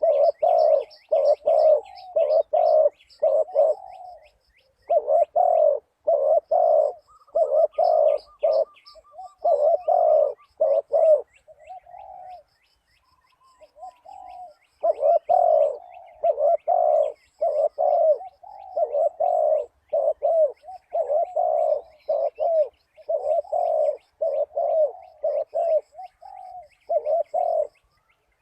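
Spotted dove cooing in runs of short, low coos, about two to three a second, pausing briefly about four seconds in and again around twelve to fifteen seconds in. Small birds chirp faintly in the background.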